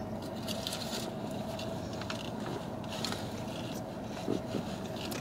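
Someone eating a loaded bagel: small bites, chewing and scattered light scrapes and crackles, over a steady faint hum.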